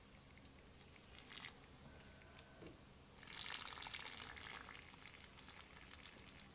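Aerosol spray can fired through a thin straw nozzle onto a rusted revolver: a short hiss about a second in, then a longer, louder hiss of about a second and a half starting about three seconds in that tails off.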